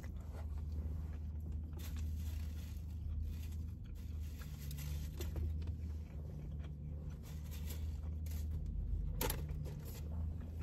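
Quiet chewing of a cheesesteak sandwich, with faint rustling and handling noises and a sharp click about nine seconds in, over a steady low hum in a car's cabin.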